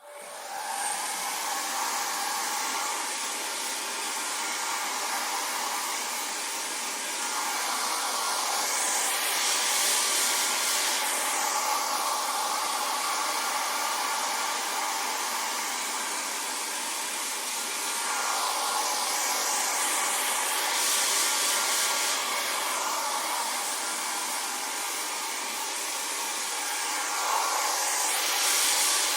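Hair dryer running: a continuous rush of blown air with a steady whine underneath. It starts at once at the very beginning, then swells louder and brighter three times, roughly every ten seconds.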